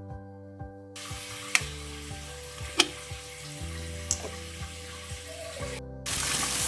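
Background music with a steady hiss that starts about a second in, marked by a few sharp clicks. The hiss breaks off briefly near the end and comes back louder.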